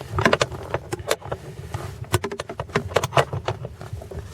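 Sharp metallic clicks in irregular clusters from a hand tool tightening a car-seat mounting fastener.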